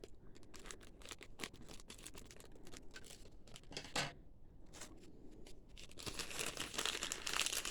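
Packaging crinkling and tearing as a small wrapped item is opened by hand: a run of short crackles, busier near the end.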